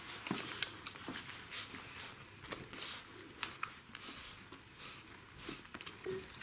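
Czechoslovakian wolfdog puppies, about five weeks old, suckling at their mother: soft irregular wet sucking and smacking clicks with light rustling, and a couple of faint brief squeaks near the end.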